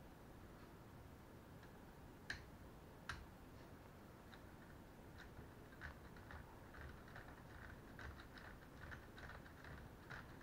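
Faint clicks and light rattles of LEGO Technic plastic parts as the model is handled and its levers worked: two sharper clicks about two and three seconds in, then a run of small clicks in the second half.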